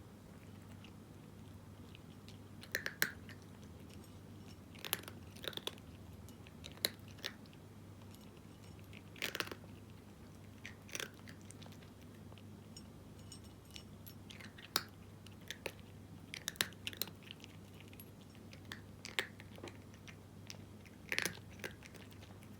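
A cat crunching dry kibble: short, sharp crunches coming irregularly, often in small clusters, every second or two. A steady low hum runs underneath.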